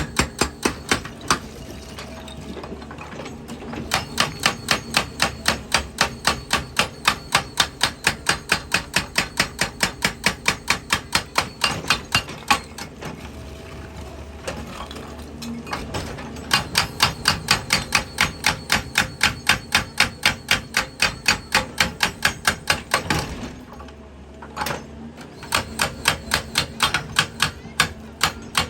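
Excavator-mounted hydraulic breaker hammering rock: rapid, even blows at about five a second, in runs of several seconds with three short pauses between them.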